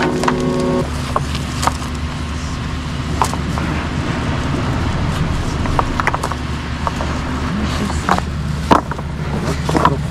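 Excavator's diesel engine running steadily, with scattered sharp knocks and clinks from the work.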